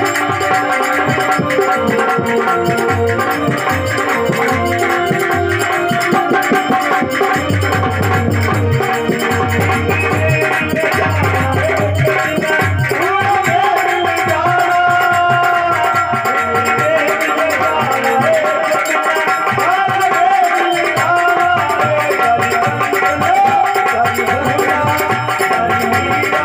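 Harmonium music with rattling percussion and a hand drum keeping the beat; from about halfway through, a man's singing voice wavers over it.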